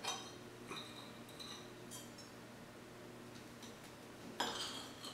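A table knife clinking and scraping lightly against a ceramic plate while butter is spread on a slice of hot bread: a few faint clicks in the first two seconds, then a louder, brief noise about four and a half seconds in.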